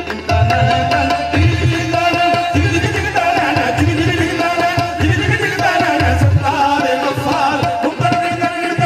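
Qawwali ensemble performing: harmoniums play held notes and a melody over a steady rhythm of deep tabla strokes, with a sung line and hand-clapping.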